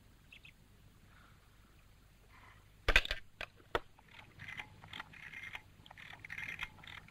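A cluster of three or four sharp clicks and knocks about three seconds in, from handling a telephone and small objects on a counter, then faint irregular high chirping.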